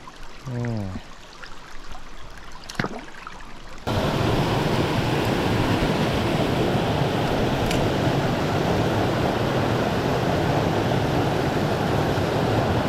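Rushing stream water, a loud steady rush that starts abruptly about four seconds in. Before it, the water is faint, with a short vocal murmur and a single click.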